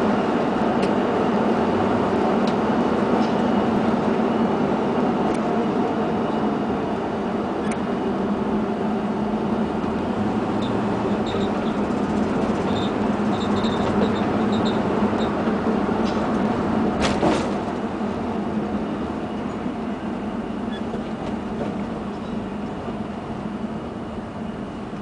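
Steady road and engine noise heard inside a car's cabin while driving on a freeway, with a brief sharp click about two-thirds of the way through; the noise eases slightly near the end.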